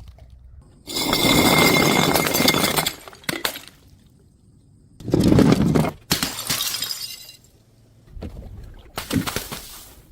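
Glass bottles smashing: several separate crashes of breaking glass with ringing shards, the longest about a second in and another strong one about five seconds in.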